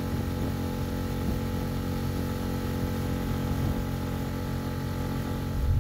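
Outboard motor of an inflatable boat running at a steady speed under way on calm water, its engine note even throughout.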